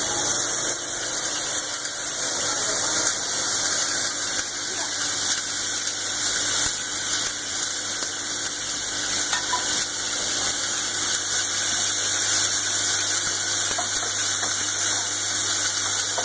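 Steady hiss of factory production-line machinery, strongest in the high range, with faint steady hums beneath and no breaks.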